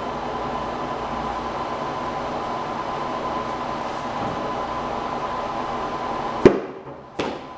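A cased tablet dropped from one metre hits the floor with a sharp knock, bounces, and lands again with a smaller knock less than a second later. Under it runs a steady noise with a thin constant tone, which drops away after the first hit.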